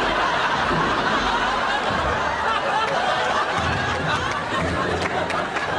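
Crowd of many voices chattering and laughing at once, a steady din echoing in an indoor swimming-pool hall.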